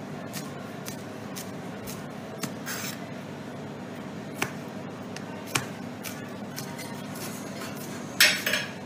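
Chef's knife slicing a spring onion on a plastic chopping board: sparse, irregular taps of the blade on the board, roughly one a second, over a steady low hum. A louder, longer scrape comes near the end.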